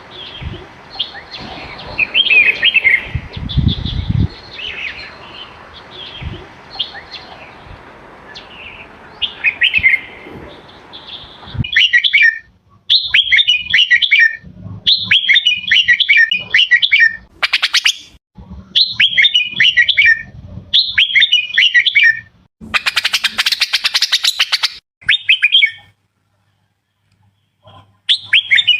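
Red-whiskered bulbul singing: short, bright, chirpy phrases repeated about once a second, with a couple of harsher rattling calls in the second half.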